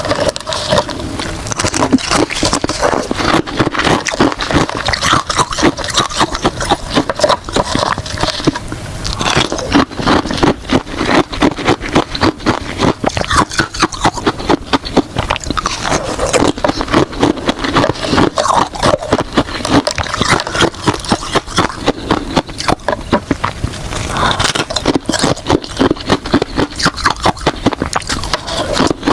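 A person biting and chewing hard ice, with rapid loud crunches and crackles.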